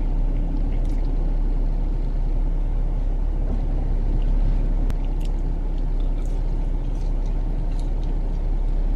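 Steady low rumble and hum of a parked car heard from inside the cabin, with the engine and climate fan running, and a few faint small clicks over it.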